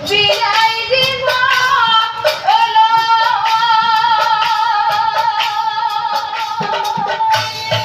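A woman singing Assamese Nagara Naam devotional song, her voice climbing in steps over the first two seconds and then holding one long high note with vibrato. Regular hand clapping keeps time throughout.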